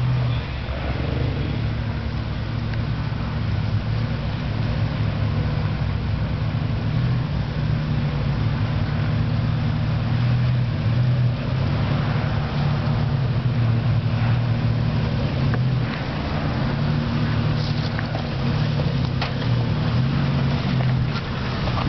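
Nissan Pathfinder's engine running steadily under load as it crawls up a rocky off-road trail, with a few sharp knocks near the end as it climbs over the rocks.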